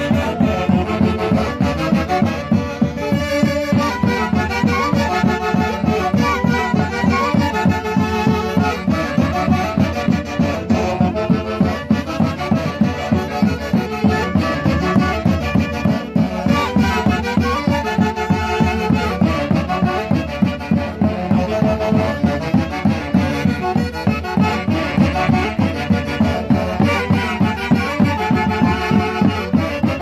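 Huancayo-style orquesta típica playing live: saxophones and clarinets carrying the melody over an Andean harp, with bass drum and snare keeping a steady beat.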